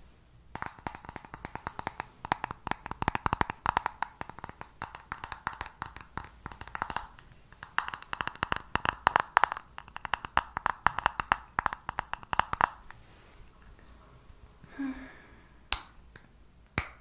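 Long fingernails tapping and clicking rapidly on an eyeshadow palette case for about twelve seconds. After a pause, two single sharp clicks come near the end.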